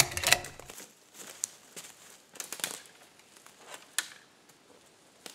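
Footsteps crunching through dry leaves and twigs on a forest floor while a metal ladder tree stand is carried. It is loudest as it begins, then goes on as irregular crackling steps with a sharp click about four seconds in, and grows fainter toward the end.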